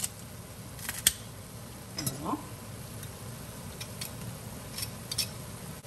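Scattered light clicks and taps of kitchen utensils over the faint steady sizzle of onions and mushrooms frying in a pan, as garlic goes in.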